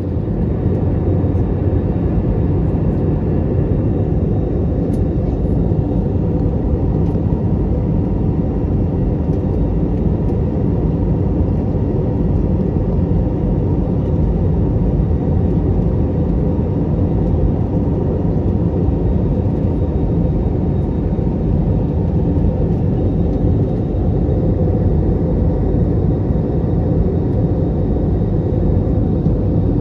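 Steady cabin noise inside an Airbus A321neo in flight: the low rumble of its Pratt & Whitney PW1133G geared turbofan engines and the rushing airflow past the fuselage, with a few faint steady hum tones above it.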